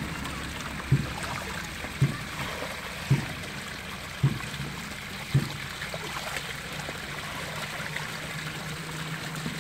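Water trickling steadily through a mud dam into a woven basket fish trap. Dull thumps come about once a second and stop about halfway through, and a low steady hum follows.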